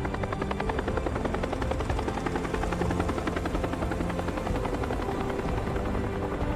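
A rapid, steady chopping pulse of about ten beats a second, like a rotor or machine, over low sustained tones.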